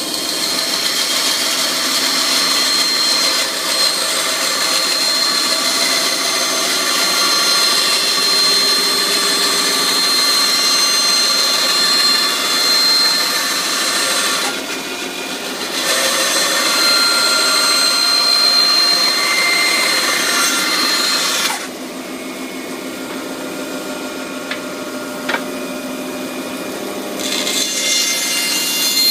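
Inca bandsaw cutting through a wooden board, the blade's rasping cut carrying a steady high tone. The cutting noise eases for a moment about halfway, and later drops for about five seconds to the quieter sound of the saw running without cutting before the cut picks up again near the end.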